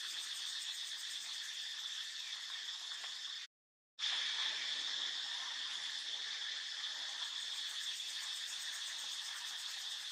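Steady, dense chorus of insects, a high-pitched buzzing that carries on evenly. It drops out for about half a second around three and a half seconds in, then resumes.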